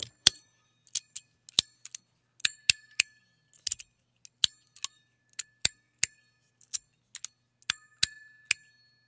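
Magnetic tuning fork fidget slider with stainless steel plates snapping back and forth, about two sharp metal clicks a second at an uneven pace. Several clicks set off a bell-like ringing tone from the tuning fork mechanism that hangs on for up to a second.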